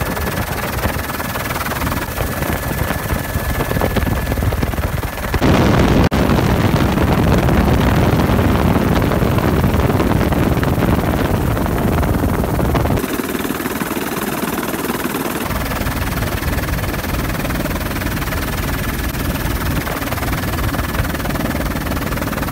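Helicopter in flight, heard from inside its open-door cabin: a steady mix of rotor, engine and rushing air. It changes abruptly in level and tone about five seconds in and again about thirteen seconds in.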